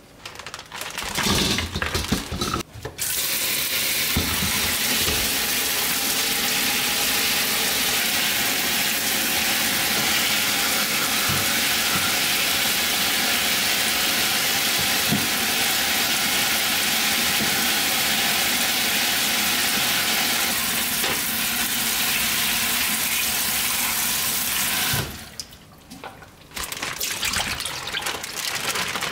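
Kitchen tap running steadily into a stainless steel sink, the water splashing over hands and a bowl as fresh seafood is rinsed. It starts about three seconds in, after some rustling of a plastic bag, and cuts off a few seconds before the end, when plastic rustling and clicks return.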